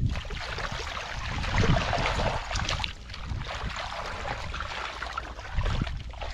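Hands splashing and sloshing through shallow, muddy paddy water while groping for catfish by hand, in irregular splashes.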